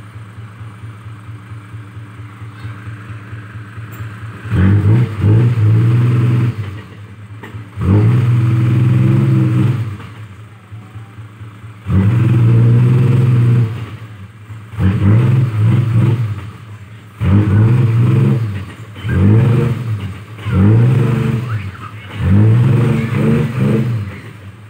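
Mitsubishi Fuso dump truck's diesel engine idling at first, then revved hard in about eight bursts of a second or two each. The loaded truck is straining to reverse through soft, sticky soil.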